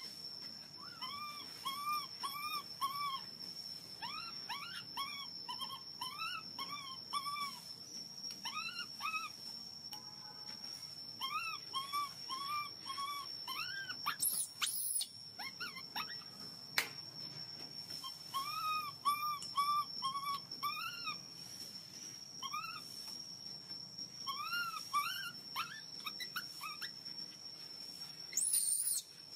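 Baby long-tailed macaque crying in runs of short rising-and-falling calls, four or five in quick succession with pauses between: the begging cries of a hungry infant wanting milk. A steady high-pitched whine runs underneath.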